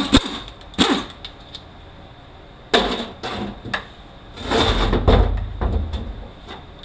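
Metal hand tools knocking and clanking against a Mazda six-speed manual transmission while a bolt is wrenched out. There are a few sharp clanks, then a longer rattling clatter about four and a half seconds in.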